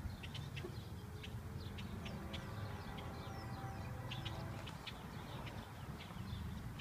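Small birds chirping, many short high calls scattered throughout, over a steady low rumble.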